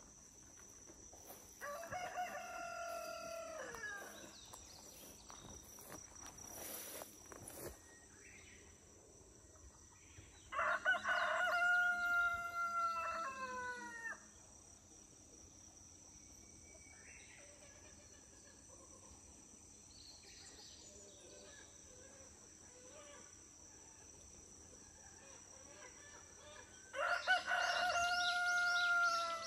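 A rooster crowing three times, each crow a drawn-out call of two to three seconds that drops in pitch at its end, the crows spaced about ten seconds or more apart.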